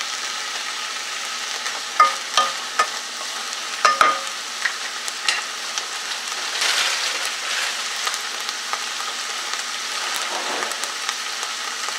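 Green beans and onions sizzling in butter in a saucepan, a steady hiss. About two to four seconds in, a wooden spoon knocks against the pan several times, each knock ringing briefly.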